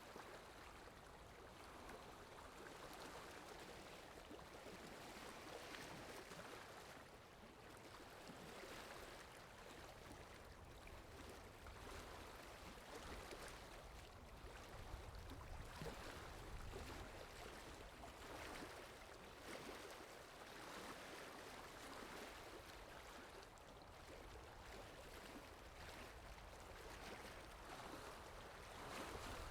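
Faint, steady rain falling: an even soft hiss that swells and eases every second or so, with a low rumble underneath.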